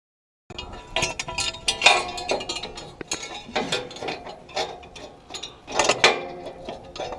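Irregular metallic clinks and clanks, with a short ring after the louder hits, from tools and steel parts being worked on a John Deere 535 baler's pickup while its teeth are replaced.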